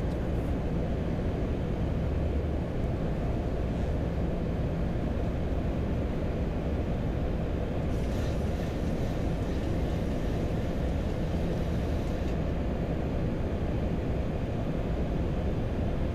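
Steady flight-deck noise of a Boeing 737-800 on approach with the landing gear down: a constant low rumble of airflow and engines with a faint low hum.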